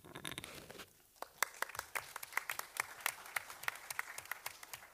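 A small audience applauding, with separate hand claps easy to pick out, starting about a second in and thinning out near the end.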